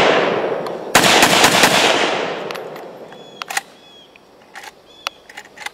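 AK-pattern rifle firing a rapid string of shots about a second in, right after the fading tail of a single shot. The reports echo and die away over the next two seconds, followed by a few faint clicks.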